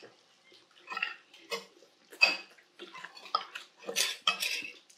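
Metal spoon clinking and scraping against a small ceramic bowl while scooping food, about six separate sharp, ringing clinks.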